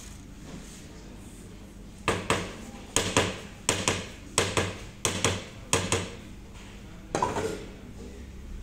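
A fluted metal bundt pan being knocked against a stainless steel worktable to loosen and turn out the baked cake: a dozen or so sharp knocks, often in pairs, over about four seconds, then one more knock near the end.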